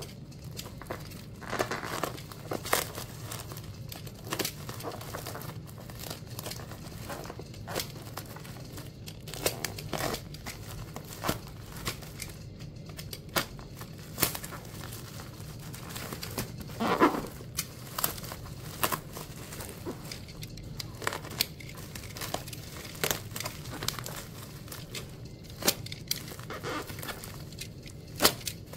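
Tape-wrapped plastic parcel being cut open with a snap-off utility knife: irregular crinkling and crackling of the plastic and packing tape, with sharp rips as the blade slices and the wrapping tears, one louder rip a little past halfway, over a steady low hum.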